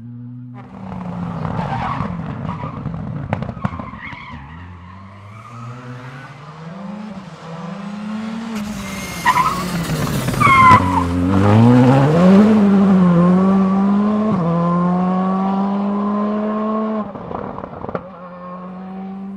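Rally car driving hard, its engine revving up and dropping back with each gear change. About halfway there is a loud tyre squeal as it slides through a corner. It then holds a steady high note while accelerating away.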